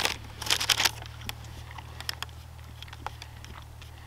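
Paper crinkling in a short burst about half a second in, then scattered light clicks and taps as a folding saw is handled and folded closed.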